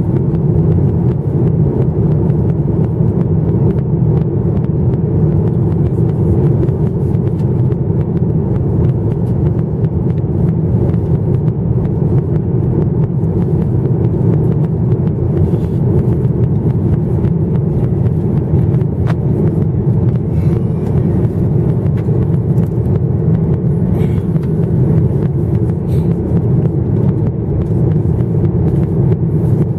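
Cabin noise inside a Boeing 737-900ER in flight, heard from a window seat: a steady, unchanging low rumble of the engines and the air rushing past the fuselage.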